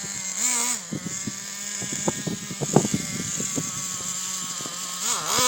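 Radio-controlled car's motor running with a steady whine that rises and falls briefly about half a second in and again near the end, with scattered clicks and knocks.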